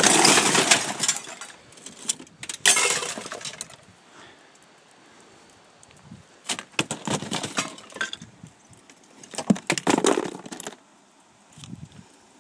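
Four bursts of rattling and clinking, each about a second long: broken window glass shifting inside a bullet-struck car door as it is handled.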